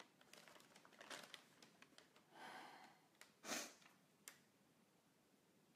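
Sheets of paper rustling faintly as they are handled, then a soft breath out and, about three and a half seconds in, a short sharp breath through the nose, the loudest sound.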